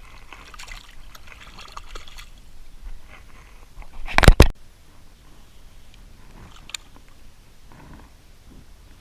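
Water sloshing and splashing lightly, with a loud, short double splash or knock about four seconds in.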